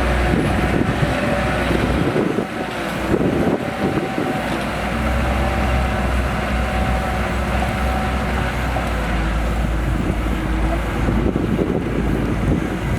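Shantui DH17C2 bulldozer working, its diesel engine running steadily with a wavering whine above the deep rumble. The deepest part of the rumble drops away for about two seconds, two seconds in.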